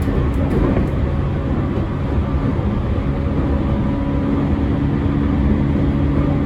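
Running noise inside an unrenovated JR East E231 series 1000 electric motor car at steady speed: wheels rumbling on the rails under a steady low hum from the traction motors and inverter. The low hum grows stronger about three seconds in; it is unusually strong in this car, which the uploader suspects of being an abnormal-noise car.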